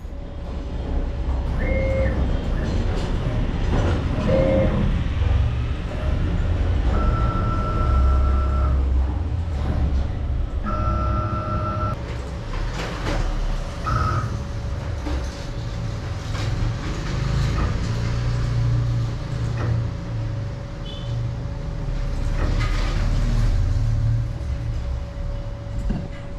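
A CNC router running: a steady low rumble with a constant whine, and short higher tones that come and go every few seconds.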